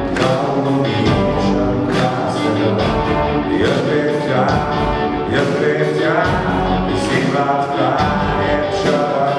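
Live rock band: a man singing into a microphone over electric guitars, electric bass and a drum kit keeping a steady beat.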